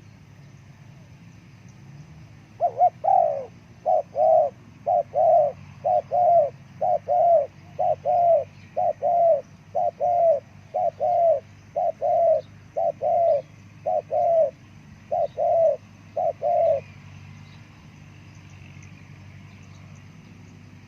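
Spotted dove (terkukur) cooing: a run of about fourteen loud, low, double-noted coos, roughly one a second, stopping about 17 seconds in.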